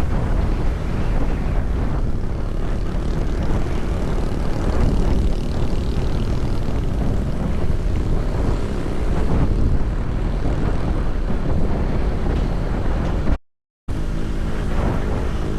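A vehicle engine runs steadily under heavy wind rush on the microphone while on the move. The sound cuts out completely for about half a second near the end.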